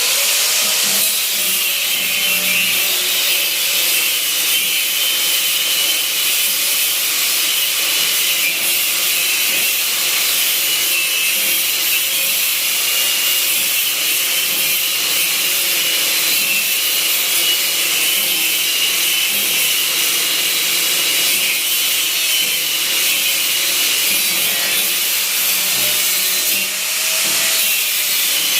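Handheld power tool running steadily with a high whine, working on the car's body, briefly easing off near the end.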